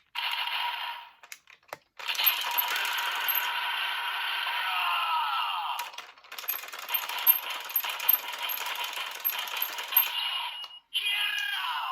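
Zenkai Buckle toy belt playing its electronic sound effects and music through a small tinny speaker, with falling pitch sweeps midway and a busy run of clicks and jingles in the second half.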